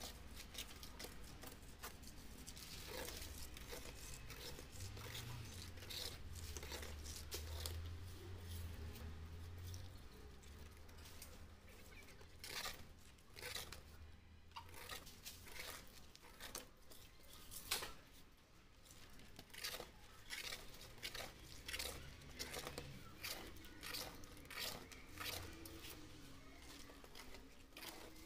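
Old polarizer film being scraped and peeled off the glass of an LCD panel, heard as a run of short, irregular scraping and tearing strokes over a faint low hum.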